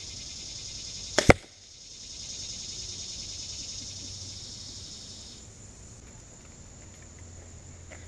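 A Sniper 370 crossbow fires about a second in: a sharp snap of the release, then a tenth of a second later the louder smack of the bolt hitting the bagged target. A steady high insect chorus runs behind it and drops away about five seconds in.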